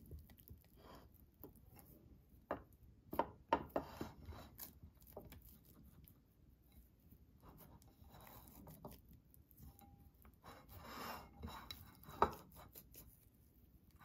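Faint handling sounds of wet sourdough dough being stretched and folded by hand in a glass container, with a few light knocks against the glass, most of them a few seconds in and one near the end.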